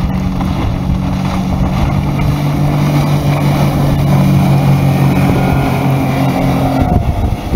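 A 50 hp outboard motor driving a 13 ft aluminium boat at speed: a steady engine drone, strongest midway, that stops about seven seconds in. Wind buffets the microphone throughout.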